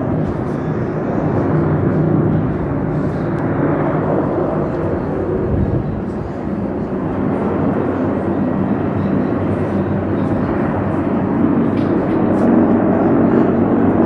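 Heavy firefighting helicopter hovering low over the sea with its water bucket lowered on a cable, its rotor and turbine noise a steady drone.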